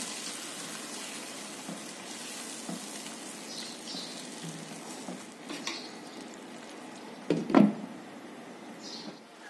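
Meat and tomato puree sizzling in a pan while a silicone spatula stirs, with a few light knocks against the pan. About three-quarters of the way through, a glass lid is set down on the pan with a loud clatter.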